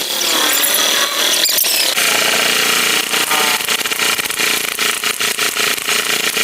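High-speed handheld electric carving tool running and cutting into MDF. It gives a steady high whine, which turns into a rapid stuttering chatter from about three seconds in as the cutter bites the board.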